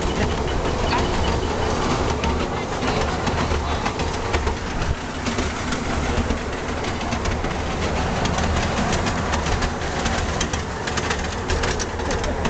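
Miniature ride-on train running along its small rail track: a steady low rumble with many short clicks from the wheels on the rails, coming thicker in the second half.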